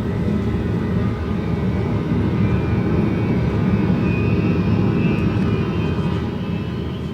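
Loud, steady engine rumble of the time machine in flight, with a faint high whine in the middle; it begins to fade near the end.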